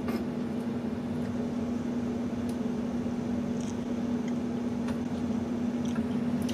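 A thirty-something-year-old air-conditioning unit running loudly with a steady, even hum and a constant low tone, with a few faint clicks over it.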